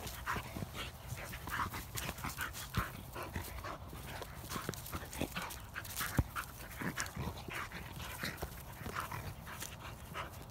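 Two-year-old black Labrador panting in quick, irregular breaths while playing with a basketball, with a few sharp knocks, the loudest about six seconds in.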